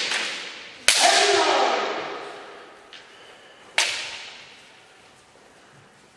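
Two sharp cracks of bamboo shinai strikes in kendo, about three seconds apart, each ringing on in the echoing hall, with a faint tap between them.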